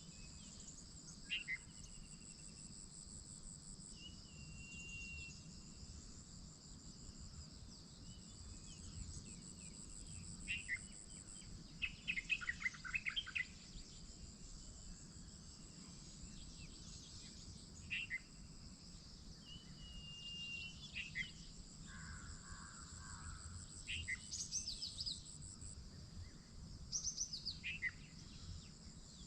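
Insects trilling steadily at a high pitch, with birds calling and chirping in short notes over the top, most busily about twelve seconds in.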